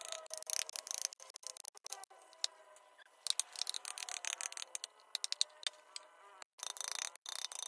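Hand tools working wood: a dense run of irregular sharp clicks and taps, with short pauses.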